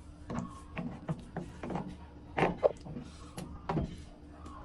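Irregular clicks and knocks, a few a second with the loudest around the middle, over a steady low hum.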